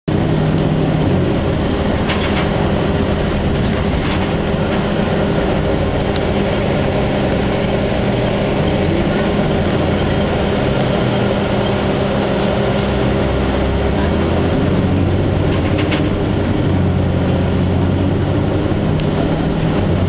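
Cummins ISC inline-six diesel and Allison B400R automatic transmission of a 2002 Blue Bird CS transit bus, heard from inside the passenger cabin while under way: a steady engine drone with road noise and a few brief interior rattles.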